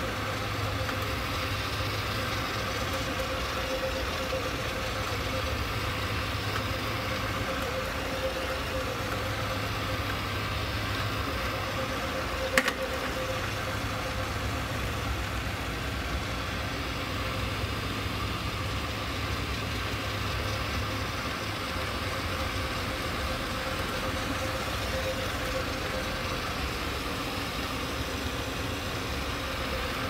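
Dry carpet cleaning machine's electric motor running steadily as its brush head works across the carpet, an even hum. One sharp click near the middle.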